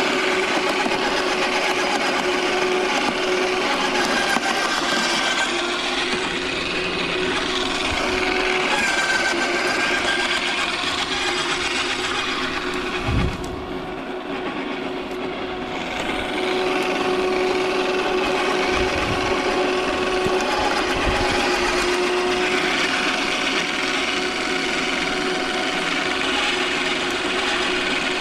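Electric garden shredder running with a steady motor hum while it crunches and chews through branches fed into it. About halfway through, after a knock, the chopping eases for a couple of seconds and the motor runs on before the shredding picks up again.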